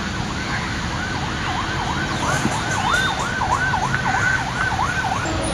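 A siren in a fast yelp, its pitch dipping and rising about three times a second. It starts about a second in and stops shortly before the end, over a low steady rumble.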